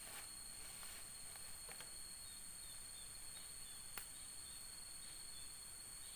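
A steady, high-pitched drone of forest insects with a thin, unbroken whistling tone under it. A few light clicks fall over it, the sharpest about four seconds in.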